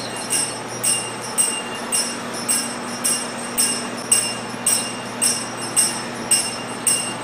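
Claw machine's electronic beeping during a game: a bright, bell-like ding that repeats about twice a second over a low steady hum.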